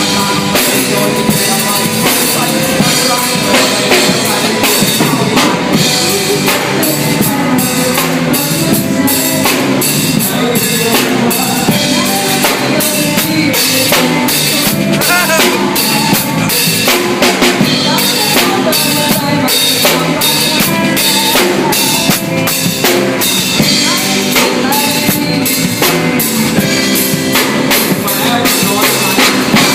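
Drum kit with snare and bass drum hits in a steady beat, played along with a backing song.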